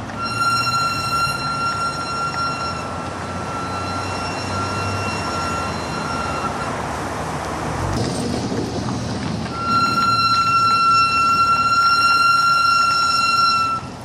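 Ferodo DS2500 brake pads in K-Sport calipers squealing with a steady high-pitched tone over road noise. One squeal runs through the first half, fading in and out, and a second starts about two-thirds in and stops just before the end.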